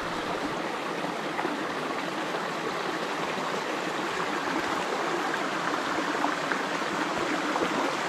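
Small stream running steadily: an even, continuous rush of flowing water close by.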